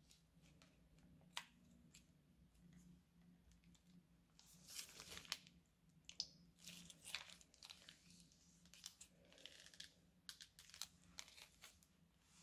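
Faint crinkling and crackling of a plastic piping bag being handled and squeezed as thick green glue is piped out of it, in irregular bursts that come thickest in the middle and latter part.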